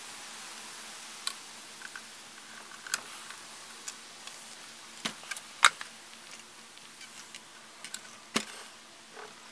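Scattered small clicks and taps of a screwdriver working the set screws on a wooden radio's front knobs. A sharper click comes about five and a half seconds in, and a firmer knock near the end as the wooden cabinet is taken in hand.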